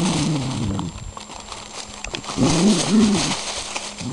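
A dog making low whines that rise and fall, one at the start and two close together near the end, over the rustle and crunch of dry leaves under its paws.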